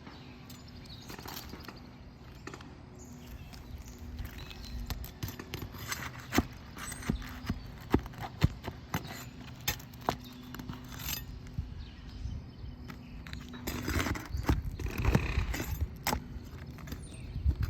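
Irregular knocks, taps and scrapes of a hand tool working under roof shingles, loosening the damaged shingles and pulling out their nails, with a louder, denser stretch of scraping near the end.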